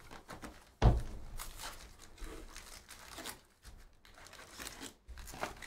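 Foil-wrapped trading card packs crinkling as they are handled and pulled from an opened cardboard hobby box, with one sharp thump about a second in.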